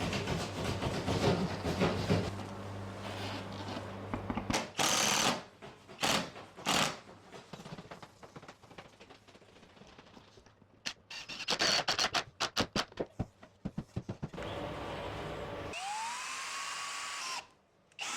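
Power drill driving 6x100 mm wafer head screws through insulation into the ceiling, in short bursts of running, with a run of rapid clicks partway through and a motor whine rising near the end. A steady hum sounds in the first few seconds.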